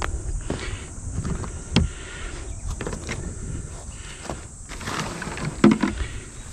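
Scattered knocks, clicks and rustling, with the loudest knocks a little past halfway, over a steady high hiss.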